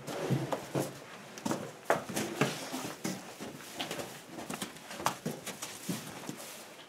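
Calves moving about a wooden barn: irregular knocks and scuffs of hooves and bodies against the floor and boards.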